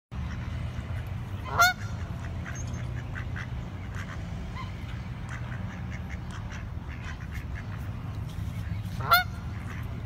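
Canada geese honking: two loud honks, about a second and a half in and again near the end, with fainter calls between them.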